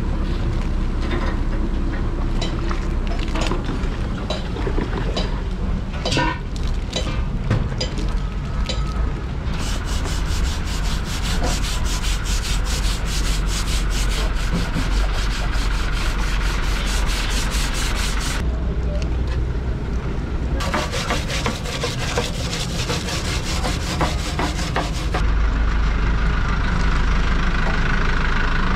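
A stiff hand brush scrubbing the copper fin core of a truck radiator, heard as two long stretches of rapid rubbing strokes. A steady low rumble runs under it.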